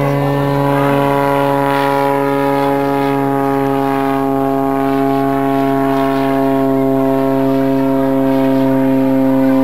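Aerobatic propeller plane's piston engine and propeller droning at a steady, unchanging pitch as it climbs.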